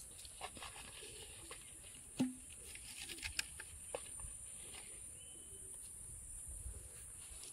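Faint handling sounds of hands at work: scattered light clicks and taps as fingers scoop dough bait from a plastic tub and fix it on the hooks of bamboo-tube traps, with one louder knock a little over two seconds in. A steady high hiss runs underneath.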